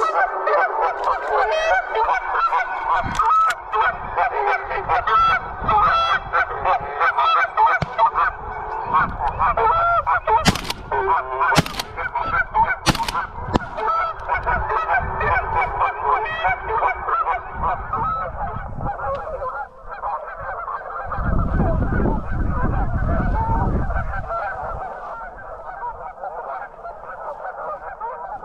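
A dense, continuous chorus of goose honking. About ten to thirteen seconds in, three sharp cracks come a little over a second apart. A low rumble, like wind or handling on the microphone, follows a few seconds later.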